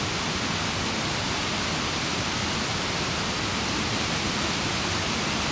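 Swollen, muddy creek in snowmelt flood, rushing steadily and evenly.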